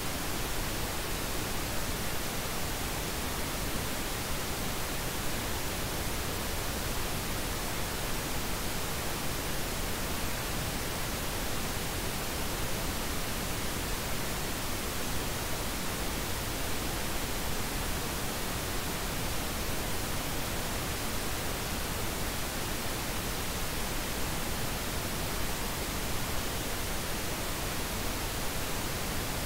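Steady, unchanging hiss of generated noise, spread evenly from low to high pitch, like a pink-noise track.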